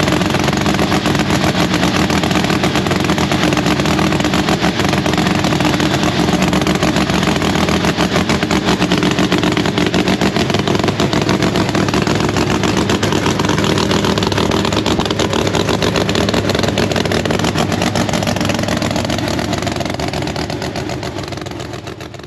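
Drag car's V8 race engine running steadily through open headers during its warm-up. It fades out near the end.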